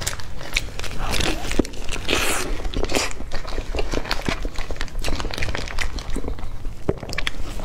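Close-up eating sounds of a cream-filled, watermelon-decorated cake being bitten and chewed, with its paper wrapper crinkling in the hands and many small wet clicks and crackles.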